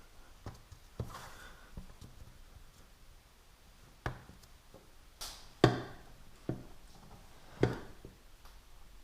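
Scattered handling knocks and clicks, irregular and a second or more apart, as parts and tools are moved around on a small tractor. The loudest is a sharp knock about five and a half seconds in, with another strong one about two seconds later.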